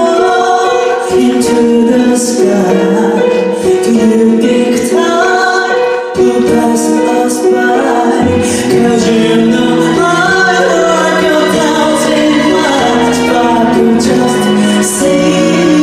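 Background music: a song with a sung melody over instrumental backing, at a steady level.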